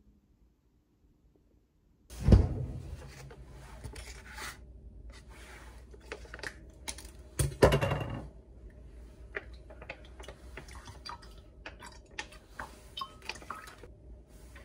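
Household objects being handled on a hard surface: a heavy thunk about two seconds in, a second one about five seconds later, and light clatter and small clicks between and after.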